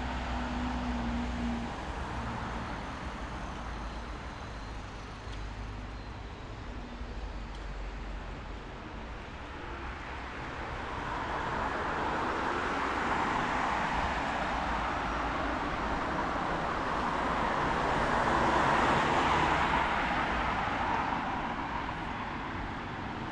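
Road traffic on a rain-wet street: a low engine rumble at first, then a vehicle's tyre hiss swells from about ten seconds in, is loudest near the end and eases off.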